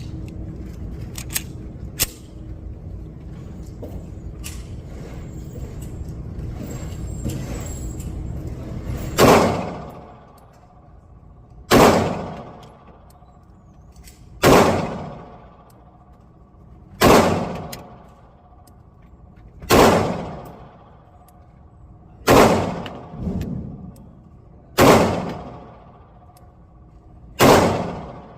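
A 9mm pistol fired eight single shots in slow, steady succession, about one every two and a half seconds, each shot trailing off in a short echo. Before the first shot there are several seconds of low background noise and a few small clicks.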